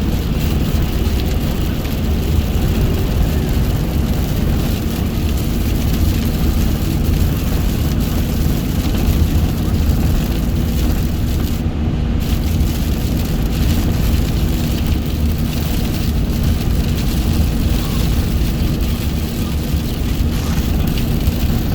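Steady noise of a car driving at motorway speed: a continuous low rumble of tyres and engine, with a faint steady hum.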